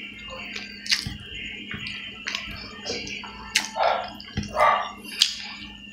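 Close-up eating sounds: wet chewing and lip smacks with a few sharp clicks, as a man eats rice and pork with his hands, over a steady low hum.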